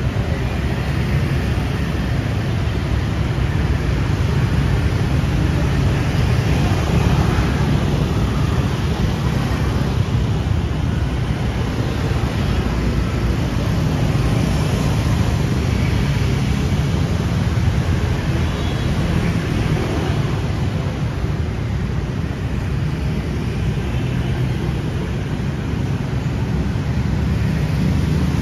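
Steady city street traffic: a continuous wash of passing vehicles with a deep, even rumble and no single event standing out.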